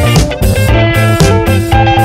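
Background music: guitar-led instrumental with a bass line and a steady beat.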